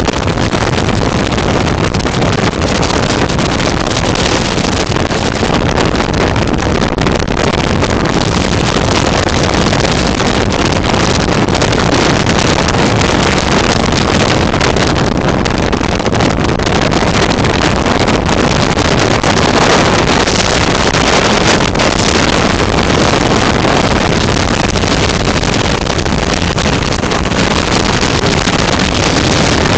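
Flexwing microlight trike in cruising flight: steady engine and propeller noise mixed with heavy wind rushing over the microphone in the open cockpit.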